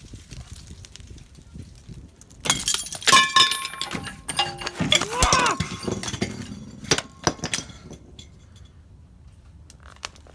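Loud metallic clanking and clattering of steel tools and parts against the axle hub, a run of sharp knocks with bright ringing tones, starting a couple of seconds in and dying away near the end.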